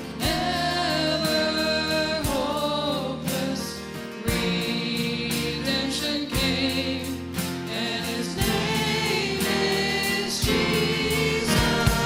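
A choir and band perform an upbeat gospel-style Christmas worship song: massed voices over sustained instruments, with a steady beat.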